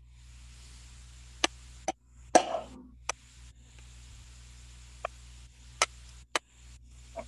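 A spoon knocking and scraping against a bowl while a thick nut-based mixture is scooped out: about eight short taps at uneven intervals, one a little after two seconds in followed by a brief scrape.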